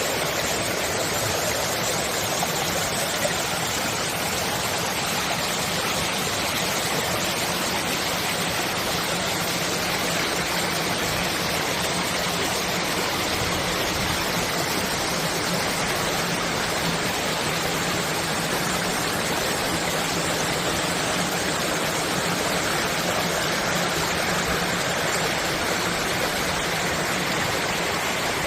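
Clear mountain stream rushing and splashing over rocks in a steady, unbroken wash of water noise.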